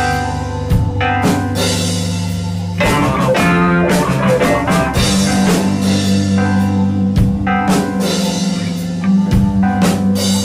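Live band playing an instrumental passage on drum kit, guitar and bass, with held notes over a steady beat and a busy drum fill about three seconds in.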